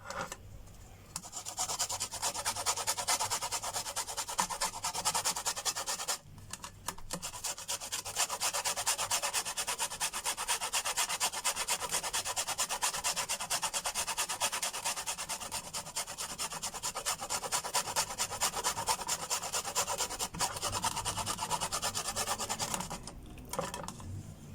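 A lemon being grated on a hand grater: quick, even rasping strokes of the peel across the blades, with a short pause about six seconds in before the grating resumes.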